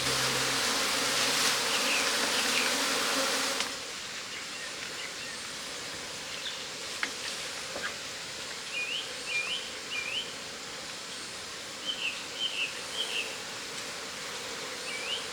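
Swarm of honey bees humming loudly, which drops suddenly to a quieter steady hum a few seconds in. A small bird calls over the hum in short rising chirps, about three at a time, several times.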